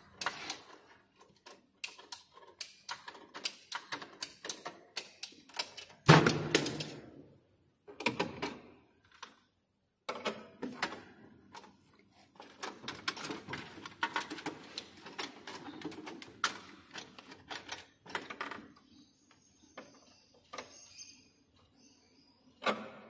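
Irregular metallic clicking and clattering of hand tools and bolted fittings being handled at a distribution board's earth bar, with a louder knock about six seconds in.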